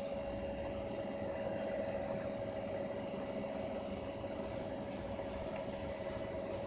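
CNC lathe running with a steady hum and one strong steady tone. From about four seconds in, a high-pitched chirp repeats about two to three times a second over it.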